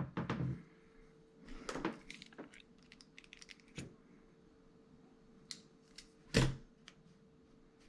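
Small clicks, taps and handling noises of metal lighter parts being worked by hand, with one louder knock about six and a half seconds in. A faint steady hum sits underneath.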